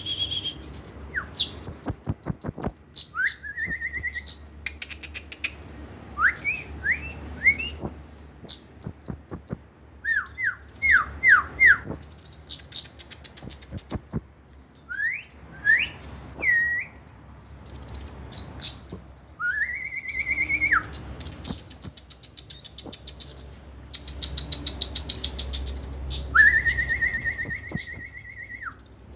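A kemade songbird singing a loud, continuous and varied song. It runs fast, very high chattering phrases together with short slurred notes and a few long, level whistles. It is the kind of vigorous song used as a lure to get reluctant kemade to sing.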